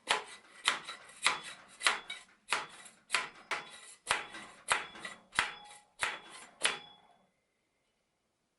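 Rubber mallet striking a PVC-pipe crown race installer, about a dozen sharp knocks at a steady pace of one every half second or so, driving a headset crown race onto a 1-inch fork steerer. The knocks stop about seven seconds in.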